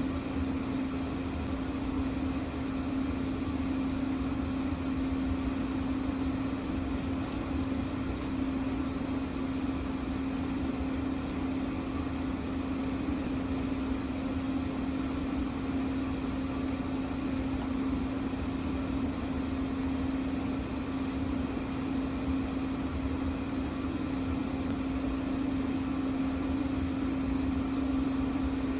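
Commercial gas boiler running: a steady fan-like hum with one strong, even tone that does not change.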